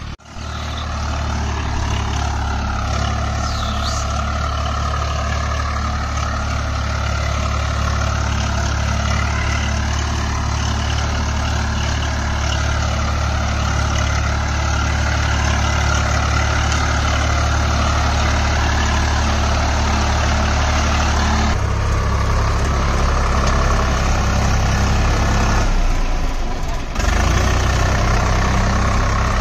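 Swaraj 744 FE tractor's diesel engine running steadily under load as the tractor drives through deep mud, with abrupt changes in the engine sound twice near the end.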